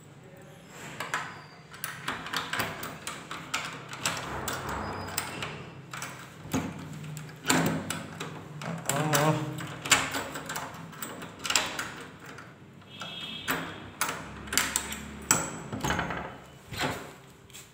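A key being worked in a hotel room door lock and the metal lever handle rattled, making a long string of sharp clicks, knocks and rattles.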